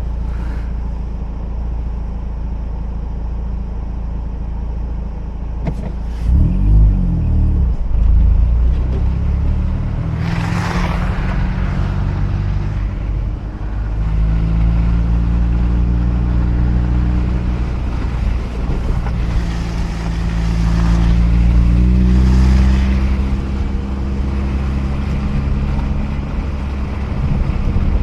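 Mazda RX-8's twin-rotor Wankel rotary engine running under way, its revs rising and settling a few times, over a steady rumble of tyres on a snowy road. Two louder hissing whooshes pass about ten seconds in and again past twenty seconds.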